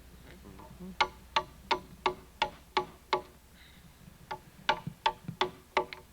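Hammer striking a steel chisel to cut a notch in a log corner: sharp ringing metal-on-metal blows about three a second, seven in a row, a short pause, then five more.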